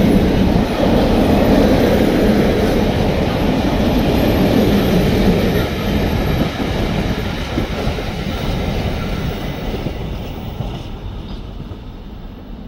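Freight train of open high-sided goods wagons rolling past, wheels clattering over the rails. The sound fades steadily from about halfway through as the last wagons go by.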